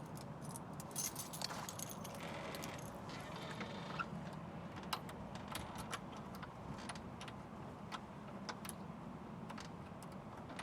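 A bunch of keys jangling, with scattered light clicks, as they are fumbled one-handed into a door lock.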